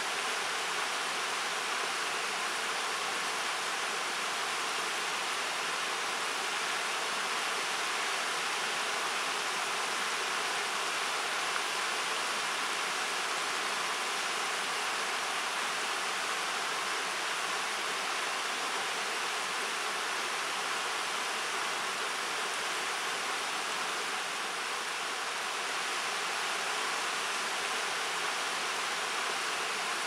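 Shallow, rocky river rushing steadily over stones in small riffles: an even, unbroken hiss of fast water.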